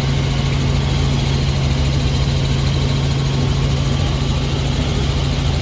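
Helicopter in flight heard from inside the cabin: a steady, loud drone of turbine and rotors with a constant low hum.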